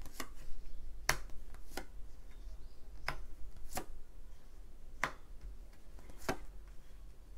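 Tarot cards being handled and laid down on a table: a series of sharp, separate clicks, irregularly spaced about a second apart.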